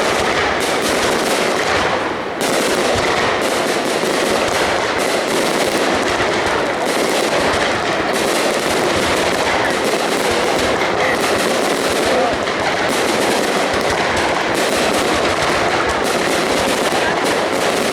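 Aerial fireworks bursting in a dense, unbroken barrage of rapid bangs and crackles, with a brief lull about two seconds in.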